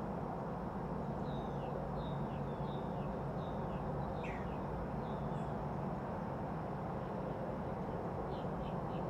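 Small birds chirping outdoors in short, high, falling notes, with a quick run of chirps near the end, over a steady background hum.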